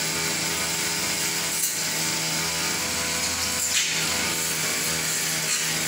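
An old two-stroke backpack brush cutter's engine running steadily at working speed while it cuts long grass.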